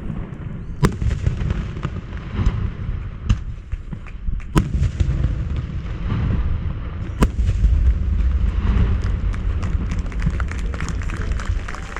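Aerial fireworks display: a continuous low rumble of shell bursts with sharp loud reports about a second in, near five seconds and just past seven seconds, then a dense run of rapid crackling over the last few seconds.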